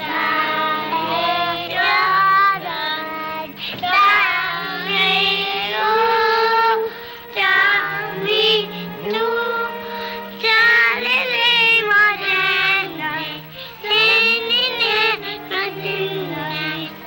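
Five young girls singing a song together, with a low sustained accompaniment beneath their voices. The recording is an old 1938 film soundtrack with a dull top end.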